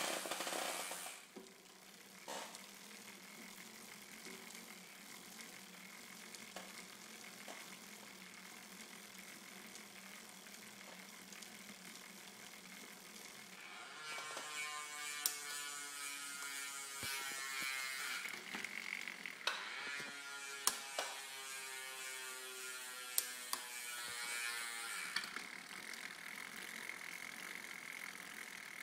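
Mountain bike drivetrain turned by hand in a workstand: the chain running over the chainring and through a Blackspire Stinger bottom-bracket chain guide, with a ratcheting whir. It gets louder through the middle stretch, with a few sharp clicks, then settles again.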